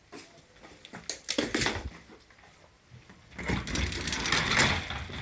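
Clicking and rattling at the entrance door, then a sliding entrance door rolling open along its track with a rattling rumble.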